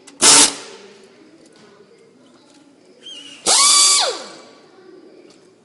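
A power drill-driver running bolts back in: a short burst about a quarter second in, then a longer run about three and a half seconds in, whose motor whine falls away as the trigger is released.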